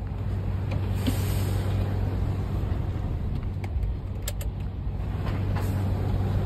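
DAF truck's diesel engine running steadily at low revs while the truck reverses slowly, with a few sharp clicks now and then.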